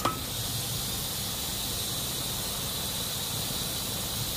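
Valve on a workshop compressed-air line opened with a short squeal, then air hissing steadily through the line to inflate a JCB tyre.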